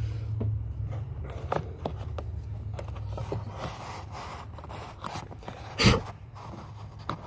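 Hands handling a plastic tow wiring harness and its connectors, with rustling, scraping and small clicks as the plug is worked into the vehicle's socket. A low steady hum stops about halfway through, and there is one sharp click about six seconds in.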